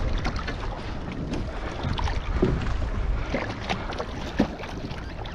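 Wind buffeting the microphone, with water splashing as a hooked yellowtail kingfish thrashes at the surface beside a kayak. A sharp knock about four seconds in.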